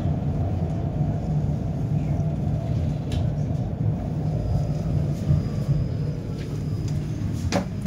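A 71-931M Vityaz-M low-floor tram running along the track with a steady low rumble. A few faint clicks come through, and there is a sharper click near the end.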